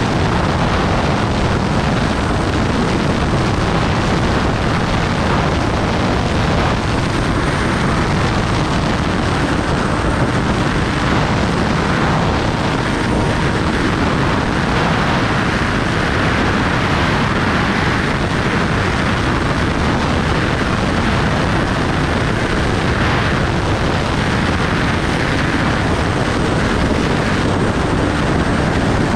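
Steady rush of wind and road noise from a Kawasaki Ninja ZX-10R being ridden at an even speed, with its inline-four engine running underneath at a steady pitch.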